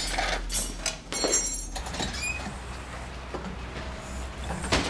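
A door being opened and shut: a string of clicks, knocks and scuffs with a short squeak partway through and a loud clunk near the end.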